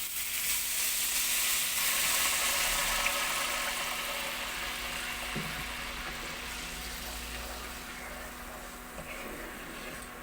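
Water poured into a pan of hot oil and fried ground spices, hissing loudly at once and then slowly dying down as the curry liquid settles.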